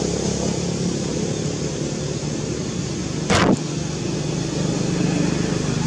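Steady low engine hum over a noisy background, with one short, loud burst of noise a little over three seconds in.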